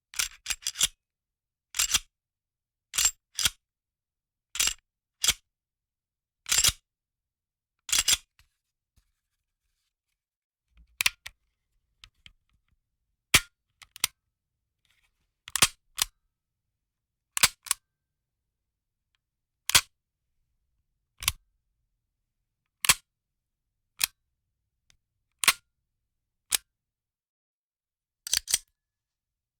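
Sharp, dry mechanical clicks from a gun's action, single and in quick pairs, repeating about every second or so with a brief pause partway through.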